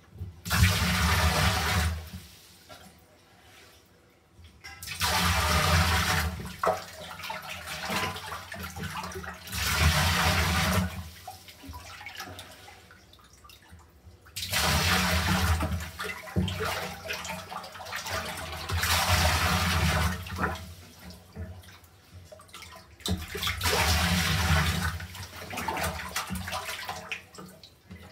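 Water rushing and splashing in surges of about two seconds, coming roughly every four to five seconds with quieter gaps between.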